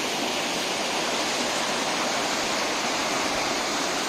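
Water rushing and falling steadily over rocks, an even unbroken sound of a cascade or fast stream.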